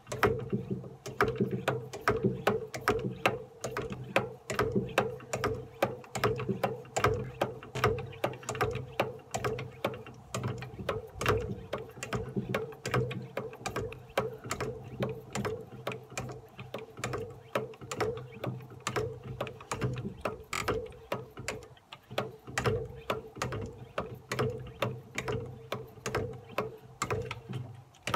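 Plastic hand-pump pressure sprayer being pumped up: the plunger is worked up and down in a quick, steady rhythm of strokes, building air pressure in the bottle.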